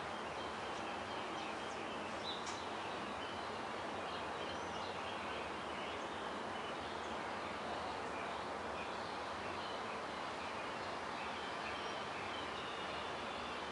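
Steady outdoor background noise with a few faint, scattered bird chirps.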